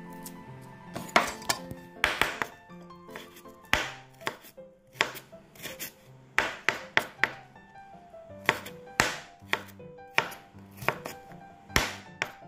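Kitchen knife chopping peeled shrimp on a bamboo cutting board: sharp knocks of the blade on the wood, irregular and often in quick runs of two or three.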